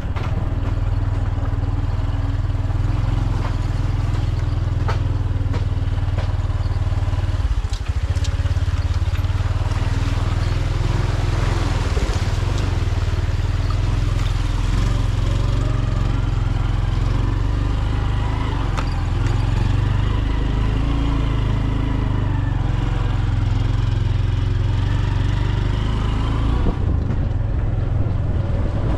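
Motorcycle engine running steadily at an even speed while riding, a constant low drone with a light rattle.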